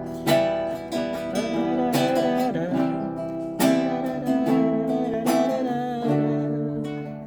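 Acoustic guitar strumming slow chords, four strums about a second and a half apart, each left to ring.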